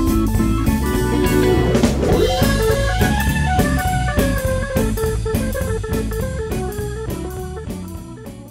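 Background music with guitar and drums, fading out near the end.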